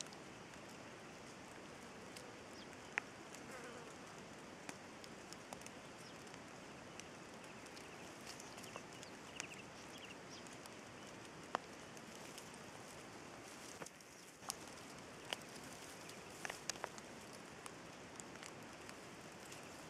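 Cape pangolin foraging: scattered, irregular sharp clicks and scratches from its digging and moving over ground litter, over a faint steady hiss.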